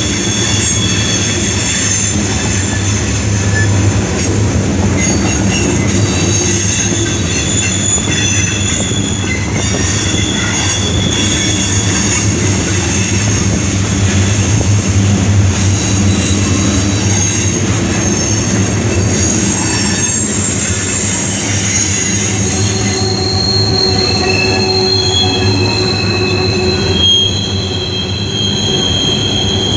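Freight train cars, mostly covered hoppers, rolling past close by: a steady low rolling noise from the wheels on the rails, with the wheels squealing in high tones that come and go and shift in pitch.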